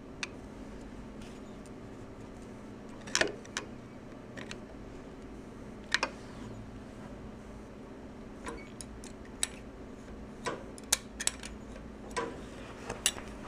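Light, irregular metallic clicks and clinks of a small wrench and feeler gauge working at the breaker points' screw as it is tightened down, over a faint steady hum.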